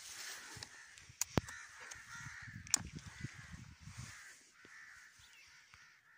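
Crows cawing repeatedly, with a few sharp clicks about a second in and again near the middle.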